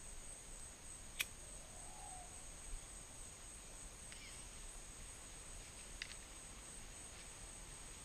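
Faint, steady, high-pitched insect chorus, with a few faint clicks.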